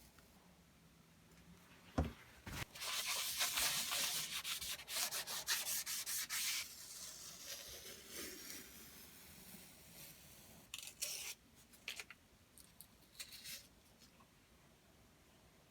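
Hand sanding or abrasive rubbing in a workshop: a sharp knock about two seconds in, then several seconds of rasping strokes, quieter after that, with a few short scrapes near the end.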